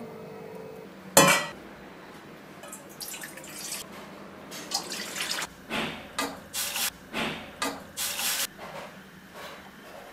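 Water poured from a small glass bowl into a stainless steel kadai, splashing into the pan in a run of short gushes. A single sharp knock comes about a second in.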